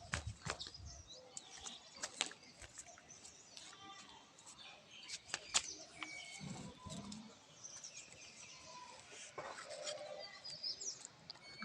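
Scattered sharp clicks and taps mixed with brief high bird chirps.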